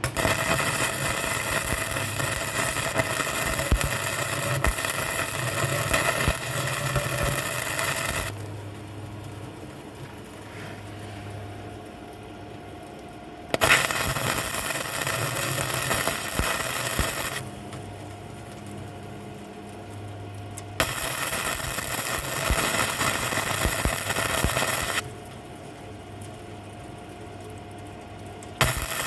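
Vevor MIG-130 flux-core welder's arc running in four separate stretches of welding: the first about eight seconds long, the next three about four seconds each. A steady hum is left between the stretches.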